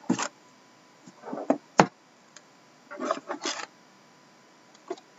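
Cardboard trading-card boxes being handled: scattered rubbing and scraping in short spells, with one sharp tap a little under two seconds in.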